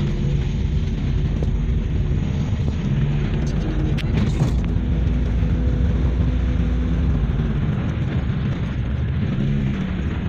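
Car engine hum and road noise heard inside the cabin while driving, a steady low rumble with a short click about four seconds in.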